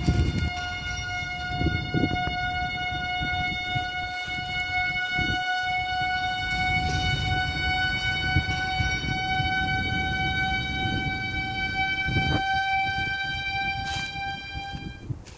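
A single sustained drone tone with overtones from the film's soundtrack, held for about fifteen seconds and rising very slightly in pitch, over a low rumble, with a knock about twelve seconds in; it cuts off at the end.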